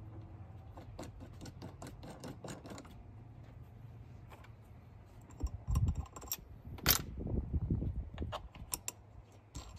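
Small metallic clicks and clinks of Ford Bronco roof-rail bolts being unscrewed by hand and handled at the bracket. There are louder knocks and handling thumps around six and seven seconds in.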